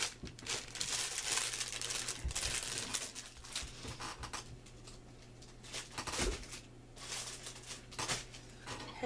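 Packaging crinkling and rustling as items are handled and rummaged through, busiest in the first few seconds, with a couple of soft knocks.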